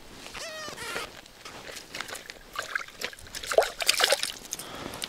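Water sloshing and dripping in an ice-fishing hole as a hooked perch is hauled out, with irregular clicks and knocks of handling, loudest a little before the end.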